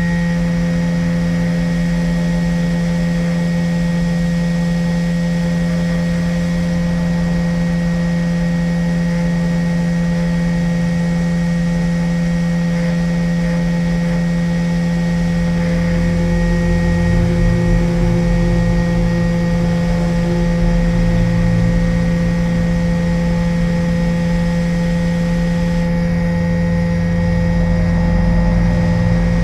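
Hot air rework station blowing, a steady motor hum with a few constant higher tones and a gusty low rumble that strengthens about halfway through. The hot air is heating the solder so the phone's speaker can be lifted off the board.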